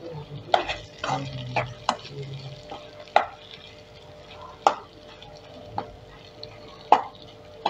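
A spatula stirring and scraping a thick, crumbly ground lentil paste in ghee around a stainless steel kadai. Sharp scrapes and knocks against the metal come irregularly, about one a second.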